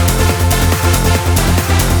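Electronic dance music with a steady, fast bass beat.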